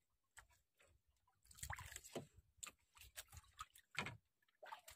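Faint water slosh against a small outrigger boat's hull, with scattered light knocks and rustles as a hand fishing line is pulled in. The loudest is a short knock about four seconds in.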